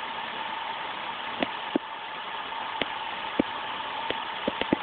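Vauxhall C30SE 3.0-litre 24-valve straight-six engine idling steadily, with a steady whine and scattered sharp clicks at irregular intervals.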